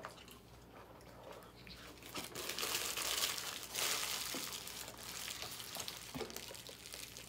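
Close-up crinkling and rustling of fast-food packaging being handled, growing about two seconds in and loudest in the middle before easing off.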